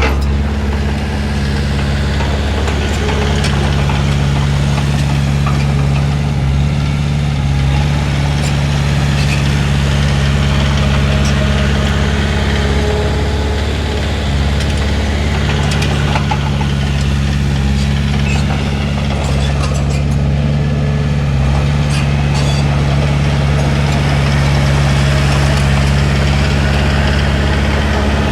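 Heavy diesel engine of earthmoving machinery running steadily at an even speed, with a few faint clanks.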